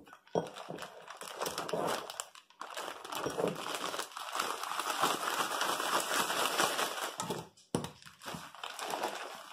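Plastic zip-top bag crinkling as it is shaken to coat pieces of biscuit dough in cinnamon sugar. The steady shaking runs from about three seconds in to about seven and a half seconds in, with shorter rustles before and after.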